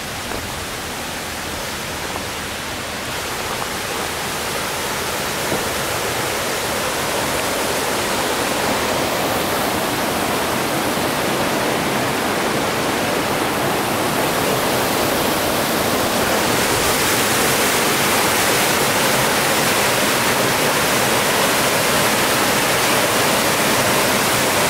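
Rushing mountain creek cascading white over boulders, a steady roar of water that swells over the first several seconds and then holds.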